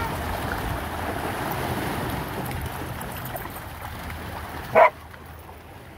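Small waves washing onto a rocky shore and dogs wading and splashing in the shallows, with wind on the microphone. A single short, sharp sound about five seconds in is the loudest moment.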